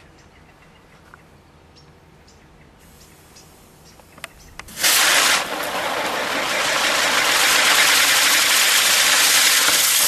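Faint scattered ticks and scratches from a rabbit digging in spilled potting soil. About halfway in, a sudden loud fizzing hiss starts and holds steady: a sparks-and-explosion sound effect for an animated paw-print logo.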